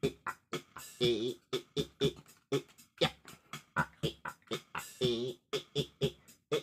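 A quick, uneven string of short percussive sounds, about four or five a second, with a few held notes of wavering pitch among them.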